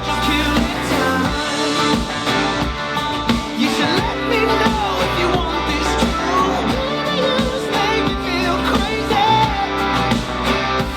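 A rock ballad with a singing voice over guitar and band, played back through Audioengine HD6 bookshelf speakers for a sound test.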